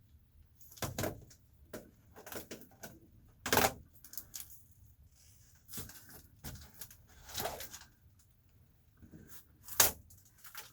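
Reflectix foil-faced bubble insulation and foil tape being handled by hand: irregular crinkling and rustling with sharp clicks, the loudest about three and a half seconds in and again near the end.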